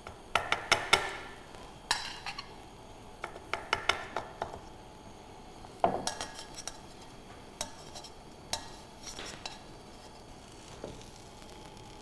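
Metal tongs clinking and scraping against a stainless steel frying pan as fried chips are picked out of the oil, with the sharpest clank about six seconds in.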